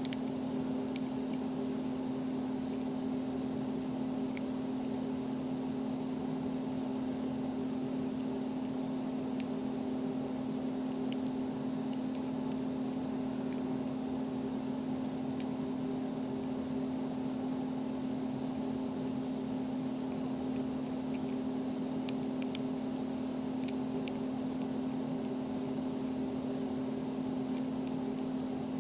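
Steady machine hum with a constant low tone, and a few faint, scattered metallic ticks from a lock pick working the pins of a padlock.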